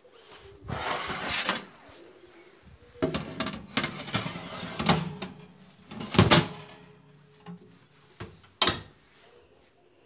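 Rosenlew electric oven being worked: a metal rack and tray scraping and clattering inside it, then the oven door knocking shut about six seconds in, and a sharp click near the end.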